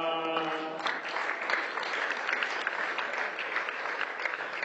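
A man's sung Basque verse ends on a held note, and the audience then applauds, with many hands clapping through the rest.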